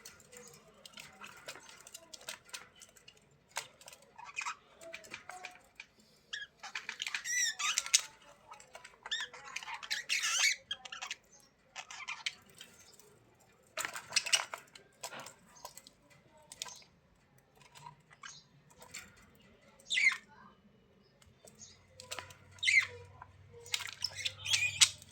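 Budgerigars chattering and warbling in short scattered bursts with pauses between them, plus a few sharp gliding chirps near the end.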